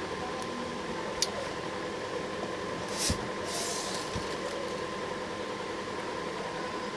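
Steady room hum, with a sharp click about a second in and a short crinkle of plastic transfer film about three seconds in, as vinyl letters are handled.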